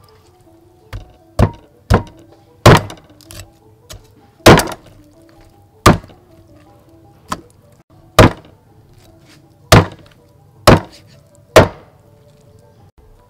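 Meat cleaver chopping pork on a thick round wooden chopping block: about a dozen sharp chops at uneven intervals, roughly one a second. Soft background music plays under the chops.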